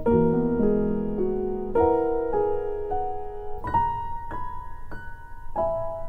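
Background piano music, a new note or chord struck roughly every half second, each ringing on under the next.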